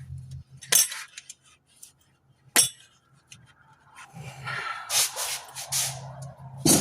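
Metal tools and car parts clinking and clattering: a few separate sharp clinks, then about four seconds in a busier spell of rattling and scraping with several knocks, and one last sharp clink near the end.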